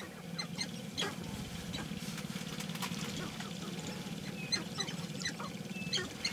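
Lek chorus of displaying sharp-tailed grouse: many short clucks, cackles and squeaky chirps from different birds, over a steady low hum.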